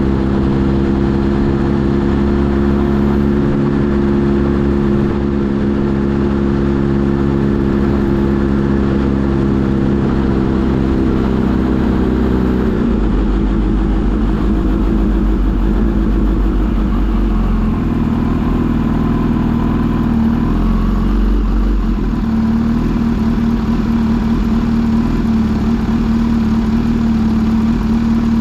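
Kawasaki Z H2 SE's supercharged inline-four engine running steadily while riding, its note changing pitch about halfway through and settling lower.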